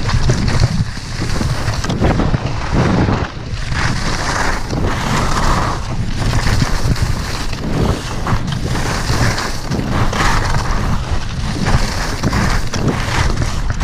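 Wind buffeting the microphone of a downhill skier's camera, a steady low rumble, with the hiss and scrape of skis on packed snow swelling and fading as the skier turns.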